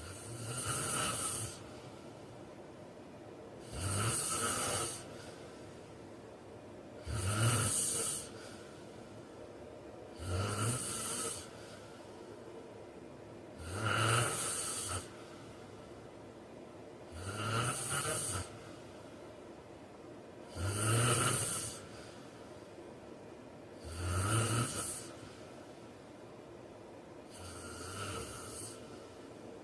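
A man snoring in a steady rhythm, one snore about every three and a half seconds, nine in all, the last a little weaker.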